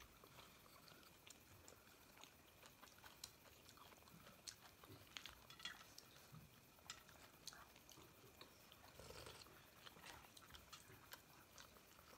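Faint chewing and mouth noises of people eating steamed momos, with a scatter of small clicks and smacks.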